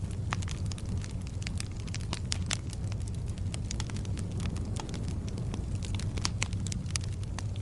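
Wood fire burning: frequent irregular crackles and pops over a steady low rumble of flames.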